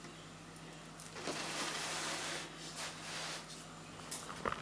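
Faint rustling handling noise as a plastic figure is set down onto its seat on the display base, with a few light clicks near the end.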